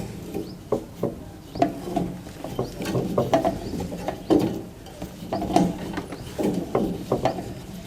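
Pipe cutter being worked around a refrigerator's refrigerant pipe to cut it through, making repeated irregular clicks and scraping strokes.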